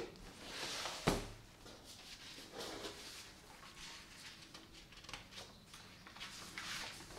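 Soft rustling and handling noise in a small room, with a sharp click at the start and a louder knock about a second in.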